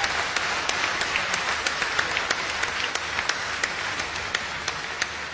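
Audience applauding, many hands clapping together, easing off near the end.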